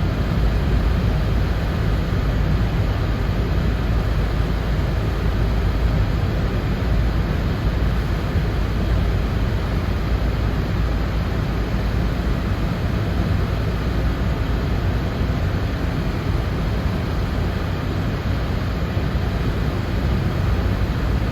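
Steady low rumble and hiss of a car driving: road and wind noise with no let-up.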